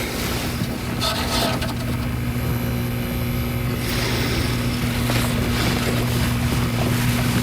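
Fluorescent light fixture buzzing: a steady electrical hum with a low tone and a higher overtone, over a rushing noise. It is loud and very distracting.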